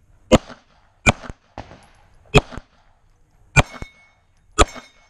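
Five pistol shots fired at an uneven pace at steel plates, a couple of them followed by a brief ringing tone.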